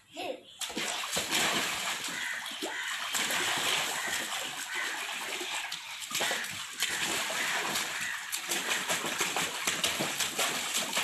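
A child splashing and sloshing water in a shallow paddling pool, continuous and uneven, starting about half a second in.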